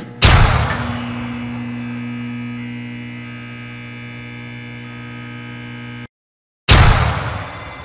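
Cinematic sound-design hits and drone: a loud impact hit fades into a steady, humming electronic drone, which cuts off abruptly about six seconds in. After a short silence, a second loud impact hit comes near the end.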